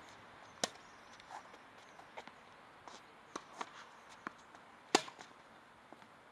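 Tennis rally on a hard court: sharp pops of a tennis ball struck by rackets and bouncing, the two loudest hits about half a second in and about five seconds in, with fainter hits, bounces and footsteps between.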